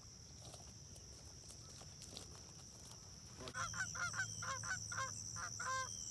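Quiet for about three and a half seconds, then Canada geese honking in a quick series of calls, over a steady high-pitched insect drone.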